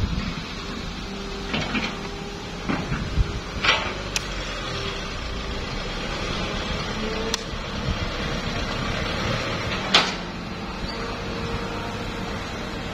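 Diesel engines of a Hitachi hydraulic excavator and a Mitsubishi Canter dump truck running steadily, with a faint steady whine and several sharp metallic clanks, the loudest about ten seconds in.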